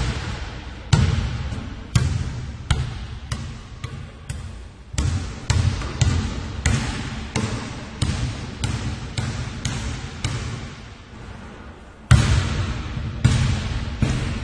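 A basketball bouncing as one person dribbles it, about one to two bounces a second at an uneven pace, each bounce a deep thud with an echoing tail. After a short lull, a louder bounce comes about twelve seconds in and the dribbling picks up again.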